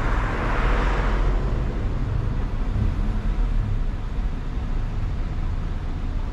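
A car driving along a road: steady low engine and tyre rumble, with a short swell of hissing noise in the first second or so.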